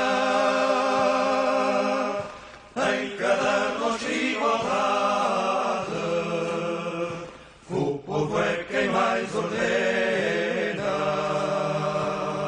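An a cappella choir singing a Portuguese folk song in long held notes, with short breaks between phrases.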